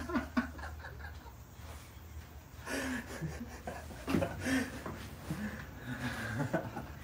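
A man laughing and chuckling in short breathy bursts, about three times.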